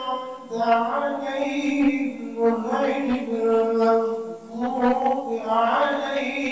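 Men's voices chanting a slow Islamic chant in long, drawn-out melodic phrases.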